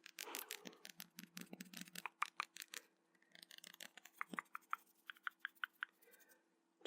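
Close-miked ASMR dry mouth sounds: a fast run of small tongue and lip clicks and pops, then, after a short pause, slower evenly spaced clicks about four a second.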